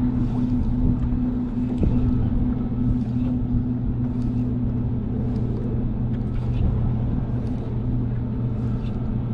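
Boat engine running steadily at low speed, a constant low hum.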